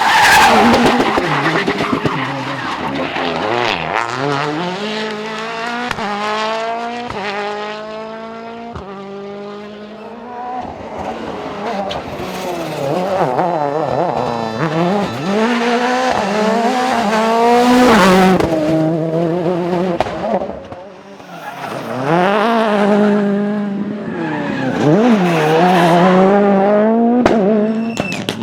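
Turbocharged World Rally Cars at full throttle on a special stage, engines climbing in pitch and dropping sharply at each gear change as several cars pass one after another. Tyre squeal as the cars slide through corners.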